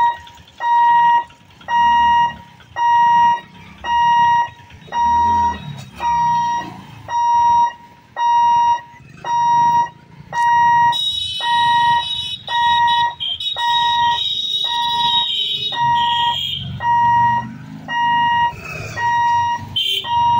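Level-crossing warning alarm beeping: one steady electronic tone repeating about 1.4 times a second. From about 11 to 16 seconds in, a hissing noise runs over the beeps, with low motor rumble underneath.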